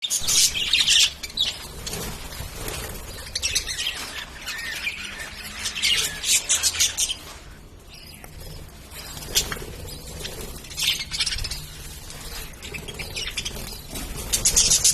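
Pet lovebirds chirping in bursts of rapid, high, shrill calls, with a short quieter lull about halfway through.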